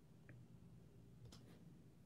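Near silence: room tone with a low hum and a couple of faint clicks.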